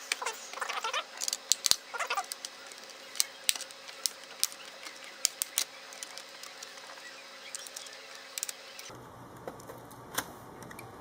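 Hard plastic laptop parts of a ThinkPad Edge E530 clicking, knocking and creaking as a part is pried and handled by hand, with a few short squeaks in the first two seconds.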